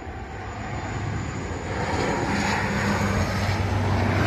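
Dash 8 Q400 turboprop airliner flying low on approach with its gear down. Its propellers give a steady low drone under the engine noise, growing steadily louder as it nears.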